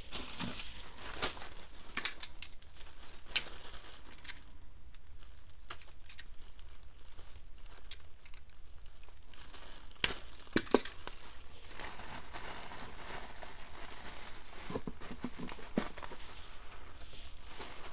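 Packaging and sample packets crinkling and rustling as they are handled, with scattered crackles, a quieter stretch in the middle and a few sharp clicks a little past halfway.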